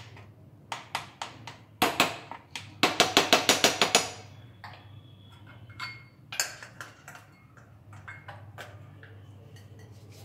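A series of sharp taps and knocks, with a quick, even run of about eight taps lasting about a second around three seconds in, over a steady low hum.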